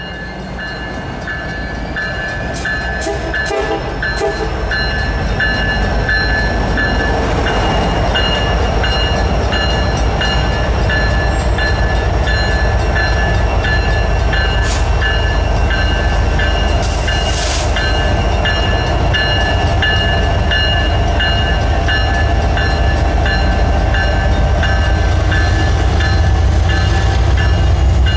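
Diesel freight train approaching and passing: a heavy low rumble builds over the first few seconds, then holds steady. Throughout, a grade-crossing bell dings evenly about one and a half times a second.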